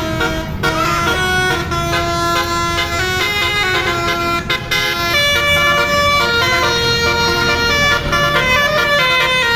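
Telolet bus horn, a set of multi-tone air horns playing a tune: held chords that change pitch in steps every half second to a second or so, over the steady low rumble of the bus's engine.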